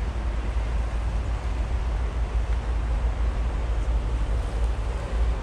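Wind buffeting the microphone: a steady low rumble that swells and dips, with a faint hiss above it.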